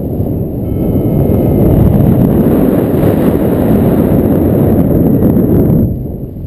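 Loud wind buffeting the microphone of a paraglider pilot's camera in flight, a low, steady rumble that eases briefly near the end.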